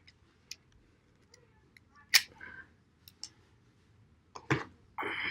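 A few scattered sharp clicks and taps of rifle cartridges being handled and set down, the loudest about two seconds in, followed near the end by a brief scrape.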